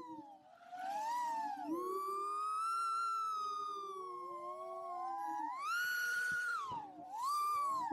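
Small FPV quadcopter's brushless motors whining, several tones gliding up and down and crossing one another as the throttle changes, with a rushing surge about six seconds in.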